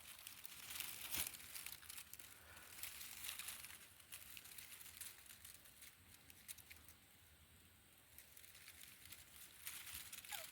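Faint crackling and rustling of dry soil and dried-out potato vines being handled while a potato plant is pulled up. It is quietest about seven seconds in and picks up again near the end.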